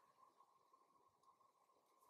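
Near silence: faint room tone with a steady faint hum.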